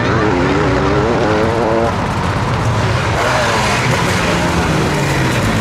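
Sidecarcross racing outfits' engines revving hard, the pitch climbing and dropping in steps as they accelerate and change gear, with several engines overlapping.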